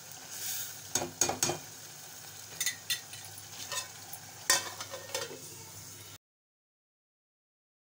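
Metal ladle stirring dal in a stainless steel pot, scraping and clinking against the sides over a steady hiss, then a sharper clink around four and a half seconds in as the steel lid goes on. The sound cuts off abruptly at about six seconds.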